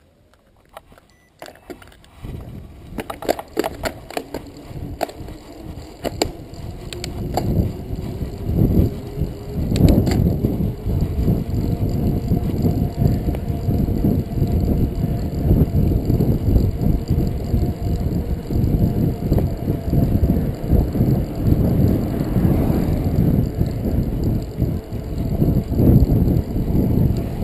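Mountain bike riding off along an asphalt street: a few clicks as it gets going, then tyre noise and wind buffeting the camera's microphone, building over the first several seconds as the bike picks up speed and then holding steady.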